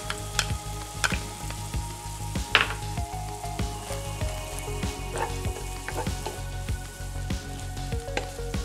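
Sliced beef, onion and chopped green chilies sizzling in a frying pan while a wooden spatula stirs them. The spatula knocks and scrapes against the pan a few times, most sharply in the first three seconds.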